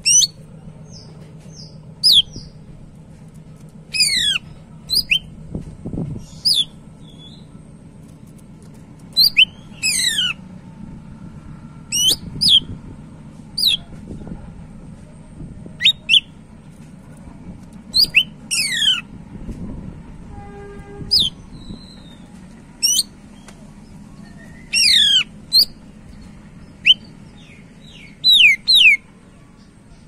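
Caged male cucak ijo (green leafbird) singing loud, sharp whistled phrases, each a quick run of steep falling sweeps, repeated every second or two.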